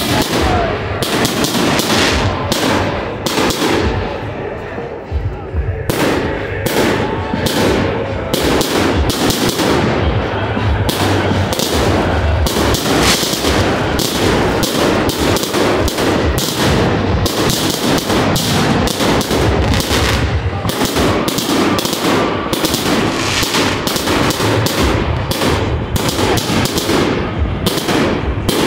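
Finale of a fireworks display: aerial shells bursting in a rapid barrage of overlapping bangs. The bangs are a little spaced at first, then become almost continuous from about six seconds in.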